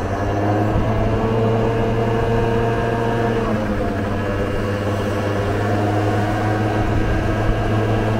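Vespa scooter's single-cylinder engine running at a steady cruising speed, its note climbing slightly in the first few seconds and then holding.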